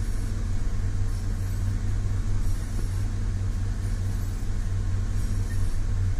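Vehicle engine idling steadily: an even, low drone with no change in pitch.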